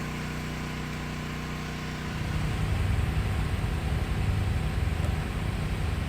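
Steady hum throughout. About two seconds in, a heat gun starts up and keeps blowing with a loud, rough low rumble as it softens the cracked plastic bumper so it can be pushed back into place.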